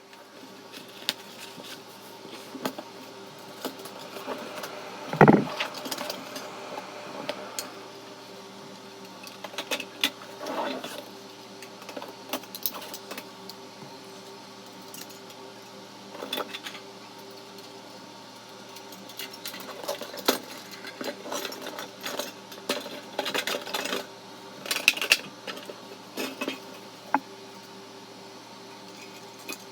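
Thin stainless-steel parts of a Uniflame Nature Stove clinking and rattling as they are handled, in scattered light clicks with one heavier knock about five seconds in, over a faint steady hum.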